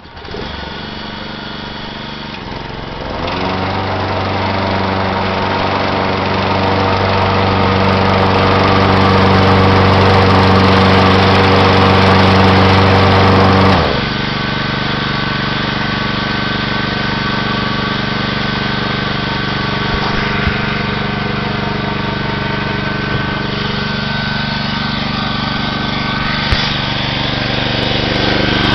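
John Deere 14SE walk-behind mower engine starting and running. About three seconds in it speeds up and runs fast and loud for about ten seconds, then drops to a lower, steady speed. The owner thinks the carburettor needs an overhaul.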